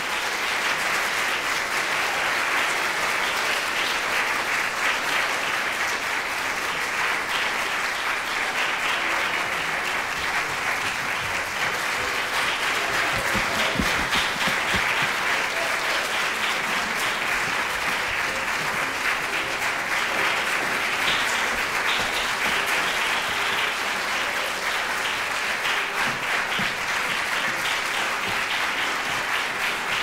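Theatre audience applauding steadily through the curtain call at the end of a play.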